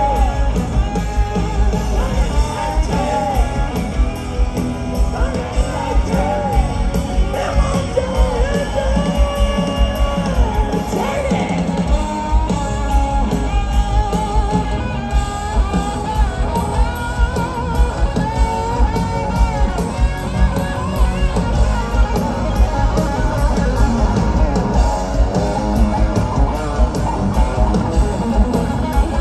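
A hard-rock band playing live through a stadium PA, heard from the audience: a sung lead vocal over electric guitars, bass guitar and a steady drum beat.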